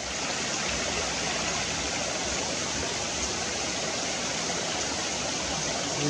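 Steady rushing noise of water, even and unbroken throughout.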